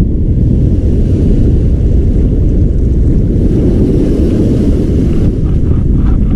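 Strong wind buffeting the action camera's microphone as a loud, steady rumble, with surf washing up the beach beneath it. A few faint clicks come near the end.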